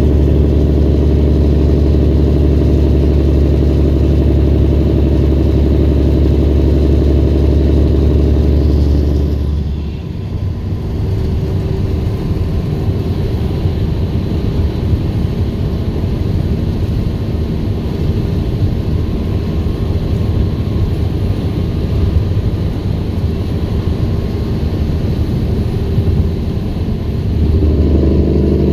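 Heavy diesel engine of a 2011 Peterbilt semi-truck, heard from inside the cab, running steadily under throttle. About ten seconds in the driver lets off and it drops to a quieter, rougher rumble with road noise, then it pulls again near the end.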